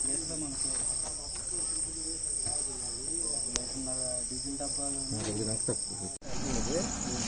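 Crickets chirring steadily at a high pitch, with indistinct voices murmuring underneath. The sound breaks off abruptly about six seconds in and resumes at once, much the same.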